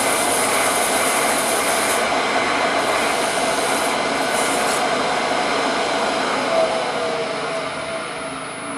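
Wood lathe running while a turning gouge cuts a walnut handle blank: a steady hiss from the cut over the lathe's motor hum. The sound fades over the last couple of seconds.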